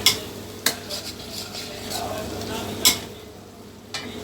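A spoon stirring chicken and masala as it fries in a pan, striking the pan three times with sharp clinks over a light sizzle.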